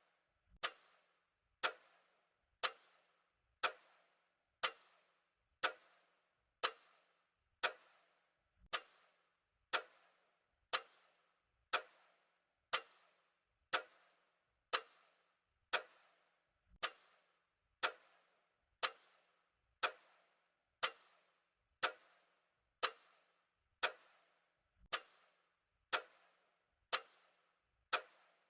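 Clock ticking steadily, one sharp tick about every second, each with a short ringing decay.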